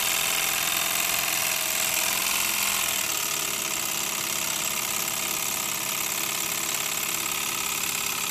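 Bowman O-gauge live steam locomotive running on a stand, its oscillating steam cylinders chuffing in a fast, steady rhythm. The new cylinders are still being run in. The running eases slightly about three seconds in.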